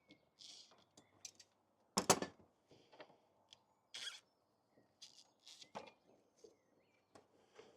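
Scattered clicks, rattles and short scrapes of hand tools and plastic and metal engine-bay parts being worked loose, with one louder knock about two seconds in.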